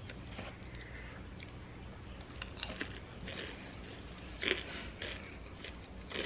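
Close-up mouth sounds of chewing and biting crunchy curly fries: scattered short crunches, the loudest about four and a half seconds in.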